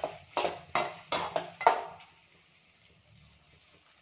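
Perforated steel ladle clanking and scraping against a metal kadai as a thick vegetable mixture is stirred: about six quick knocks in the first two seconds, then the stirring stops and only a faint steady low hum remains.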